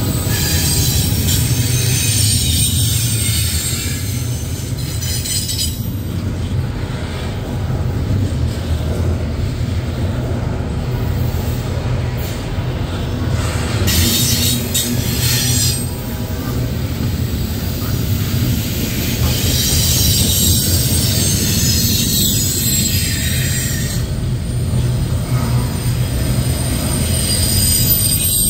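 Freight train cars rolling past with a steady low rumble, the wheels squealing on and off, strongest near the start, again about halfway through and for several seconds after that.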